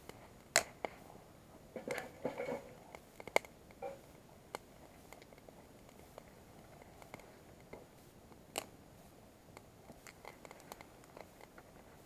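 Wood fire crackling in a portable steel fire box: sharp pops at irregular intervals, the loudest about half a second in, with a quick run of them about two seconds in and fainter ticks near the end.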